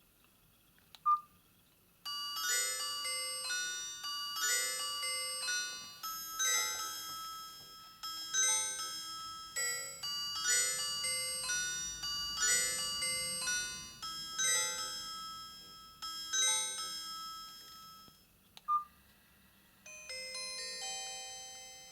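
Nokia 5310 XpressMusic (2020) playing ringtones through its loudspeaker: a bright, bell-like melody in repeating phrases for about sixteen seconds, then a different melody starts near the end. A short beep comes about a second in and again just before the second tune.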